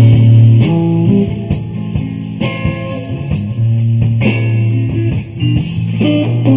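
Background music: a guitar-led song with a steady bass note and drum beats.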